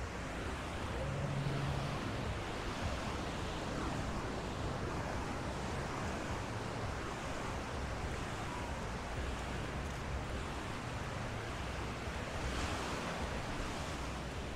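Ocean surf washing onto a beach: a steady wash of waves that swells about a second in and again near the end.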